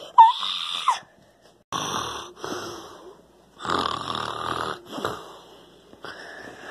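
A child's voice imitating snoring: about four or five drawn-out, breathy snores with short pauses between them, after a brief high-pitched vocal cry at the start.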